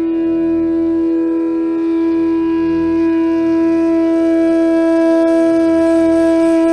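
Indian classical-style instrumental music: a flute holds one long steady note over a low drone.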